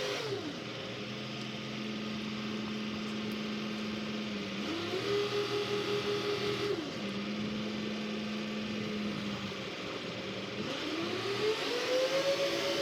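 An engine running and changing speed: its pitch drops at the start, holds low, rises and holds higher for a couple of seconds, drops back, then climbs again near the end.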